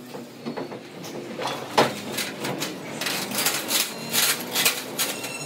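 Irregular metal clinks and knocks as tapered roller bearings are handled and worked on a trolley axle's threaded spindle end, with one sharper knock about two seconds in and a run of clinks near the end.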